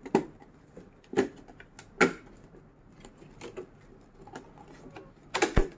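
Clear plastic box and its tape being handled and picked at: a few sharp plastic clicks and crackles about a second apart, then a louder cluster of them near the end.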